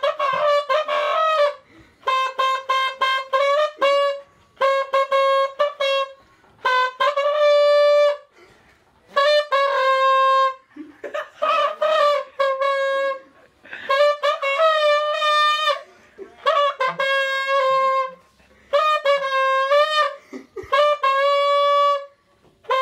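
Trombone fitted with a tenor saxophone mouthpiece, playing a melody in phrases of one to two seconds separated by short pauses, with some notes bending in pitch.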